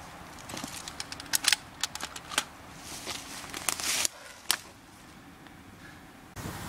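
Handling noise: a run of sharp clicks and short rustling swishes as a rifle is set across a seated person's lap and his gear is handled. It goes quieter after about four and a half seconds.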